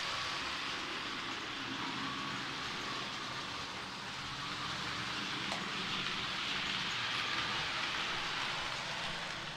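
H0-scale model trains running on the layout's track: a steady hiss of wheels rolling on the rails and the whir of the small motors.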